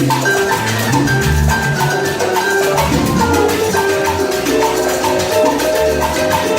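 Live salsa band playing, with a steady percussion beat, a bass line and held melodic notes over it.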